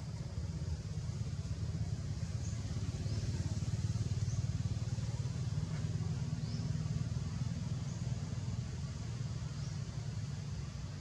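Low, steady rumble of a motor vehicle engine running nearby, swelling a little about a third of the way in. Faint short high chirps come every second or two.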